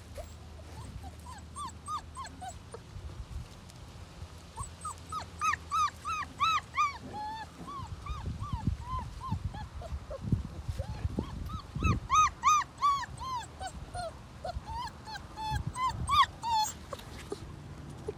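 Doberman puppy yipping and whimpering in play, in several quick runs of short high-pitched yelps, several a second. Low thumps and scuffling from the dogs tussling sound underneath in the middle and again near the end.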